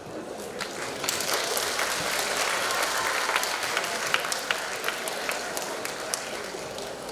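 Audience applauding in a school hall, many hands clapping. It swells about a second in and tapers off toward the end.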